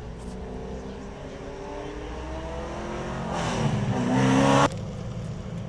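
A car engine revving. Its pitch sinks slowly over the first few seconds, then it revs up louder about three seconds in, and the sound cuts off suddenly a little before five seconds.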